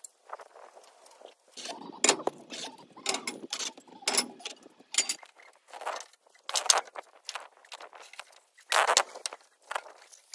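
Steel scaffold tubes and fittings clanking and knocking as the scaffold is built up: a string of irregular sharp metallic clinks and knocks, some ringing briefly.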